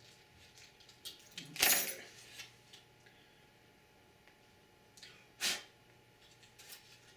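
Handling noises from working on a computer's motherboard and hardware: a few light clicks, and two louder brief scrapes, about one and a half seconds and five and a half seconds in.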